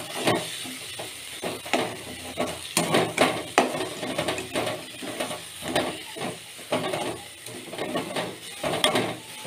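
A metal spoon stirring grated raw mango sautéing in oil in a kadai: irregular scrapes and taps of the spoon against the pan over a light sizzle.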